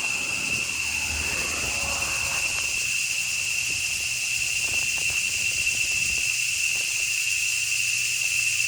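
Cicadas singing in a loud chorus: one steady, high-pitched drone, so loud it fills everything.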